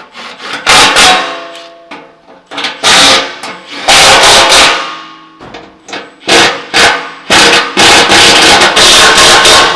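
Impact wrench run in a series of short, loud rattling bursts on a fastener under the truck.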